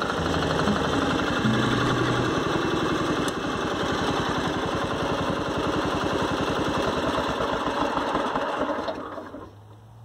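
Wheel Horse C181 garden tractor's single-cylinder Kohler engine running steadily with a rapid firing beat, then switched off about nine seconds in, dying away within half a second.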